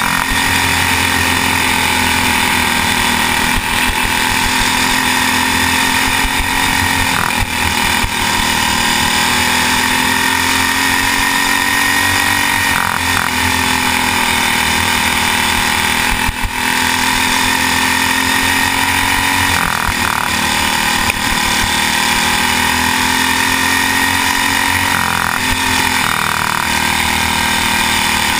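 Racing kart's small engine running loud at high revs under the driver, dipping in pitch and climbing again several times as it slows for the turns and accelerates out of them.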